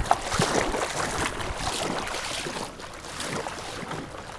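Floodwater splashing and sloshing around legs wading thigh-deep, mixed with rubbing and knocks from a handheld camera brushing against clothing; it grows quieter about two-thirds of the way through.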